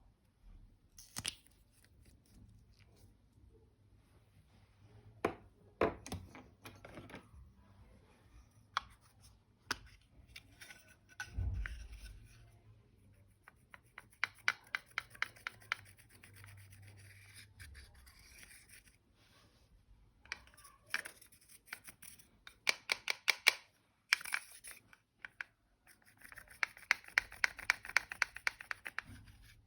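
Clear slime being mixed and folded by hand, giving scattered sticky clicks at first and then runs of quick clicks and pops, densest near the end.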